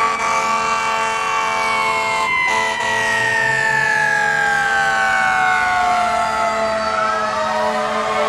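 Fire engine siren wailing, its pitch falling slowly and steadily, with a new rising sweep starting near the end.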